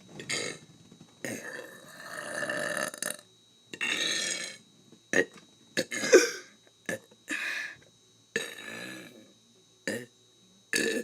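A man burping over and over: a long drawn-out burp about a second in, then a string of shorter burps with short pauses between them.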